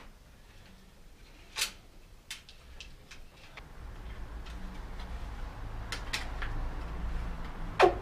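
Scattered clicks and knocks of metal tools and bicycle parts being handled as a bicycle in a repair stand is worked on, the loudest knock coming near the end. A low rumble builds up through the second half.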